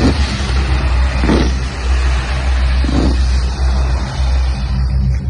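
Dull booms of fireworks bursting, three of them a second or two apart, over a steady low rumble and hiss.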